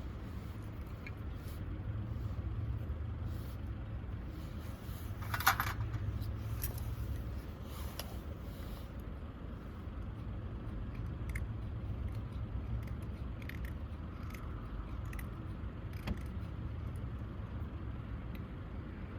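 Light clicks, taps and small scrapes of things being handled, with one louder, brief scrape about five seconds in, over a steady low rumble.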